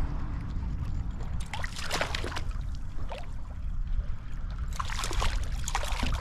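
Strong wind buffeting the camera microphone with a steady low rumble, over rushing, splashing stream water that swells louder twice.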